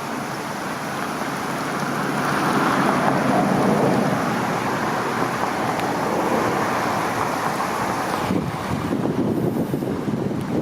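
Wind buffeting the microphone as a steady rushing noise that swells about two seconds in. About eight seconds in, the hiss drops away and the noise turns into lower, gusty buffeting.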